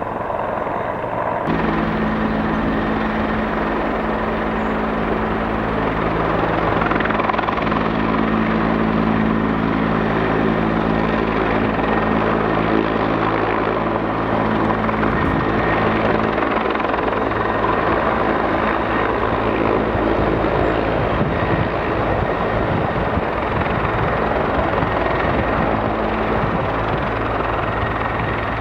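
Transport helicopter's rotors and engines running steadily, loud and continuous, with a low droning set of rotor tones. The sound shifts abruptly about a second and a half in.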